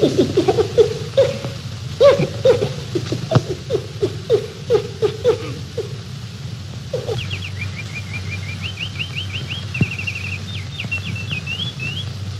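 A chimpanzee calling in a run of short, pitched hoots, about two a second, for the first six seconds. From about seven seconds in a bird sings a high, quick, varied trilled song.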